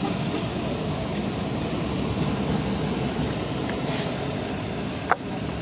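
Steady low rumble of outdoor background noise, with one short sharp click about five seconds in.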